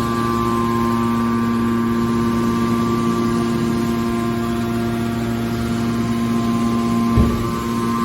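Steady hum of an automatic metal baler's hydraulic power unit running, with a brief low thump about seven seconds in.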